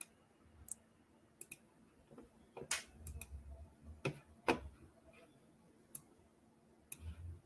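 Scattered clicks from a computer mouse and keyboard, about eight of them at uneven intervals, heard over a video-call microphone with a faint low rumble between some of them.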